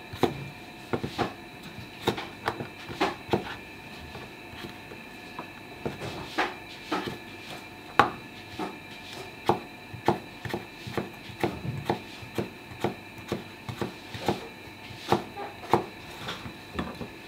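Kitchen knife cutting cucumber on a wooden cutting board: sharp, irregular knocks of the blade meeting the board, about one or two a second, over a faint steady background tone.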